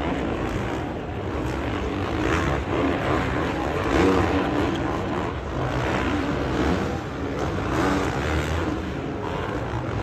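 Motocross bikes racing on a supercross dirt track, their engines making a dense, steady din.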